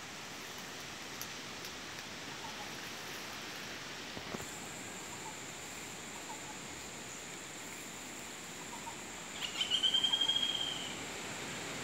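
Natural outdoor ambience of birds and insects: a steady background hiss with faint scattered chirps. A steady high insect drone starts about four seconds in, and a short, rapid, high-pitched trill, the loudest sound, comes near the end.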